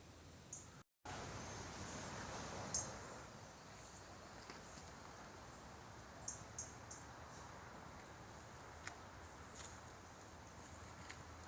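Wild birds calling in woodland: short, thin, high chirps scattered over a faint background hiss. The sound drops out for a split second about a second in.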